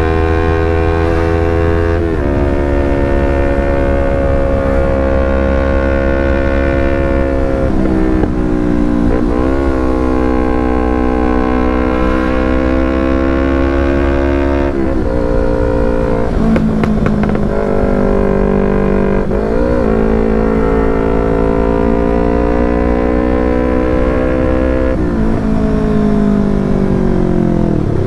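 Yamaha R25 parallel-twin engine running through a short Proliner TR1R aftermarket exhaust while riding. The engine note drops and climbs again several times as the rider shifts gears and changes throttle.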